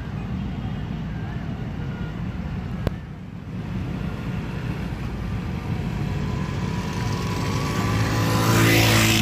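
Small motorcycle engine drawing nearer and passing close by near the end, louder as it arrives and dropping in pitch as it goes past. Beneath it, a steady low rumble, with a single sharp click about three seconds in.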